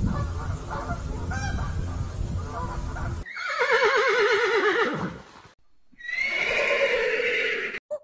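A low rumbling noise for the first three seconds. Then a horse neighs twice, each a quavering whinny that falls in pitch, the first about three seconds in and the second about six seconds in.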